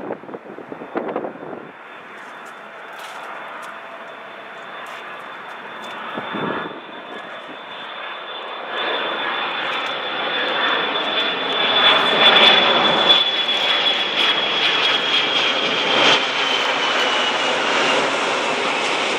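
Boeing 727-200F freighter's three Pratt & Whitney JT8D turbofans on landing approach, a jet roar that grows steadily louder as the aircraft nears. A high engine whine runs over the roar and drops in pitch near the end as the jet passes.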